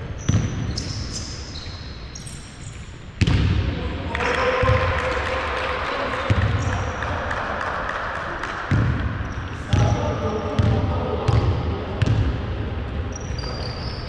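Basketball bouncing on a wooden gym floor, thumps ringing in the big hall and coming about once a second through the second half, with short high sneaker squeaks near the start and end.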